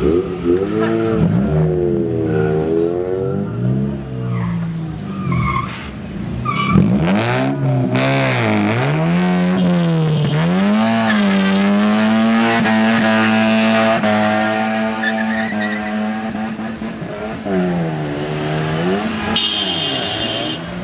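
Car engine revved hard again and again, its pitch climbing and falling, then held high for a few seconds, with tyres squealing as the wheels spin in a burnout. A car horn sounds near the end.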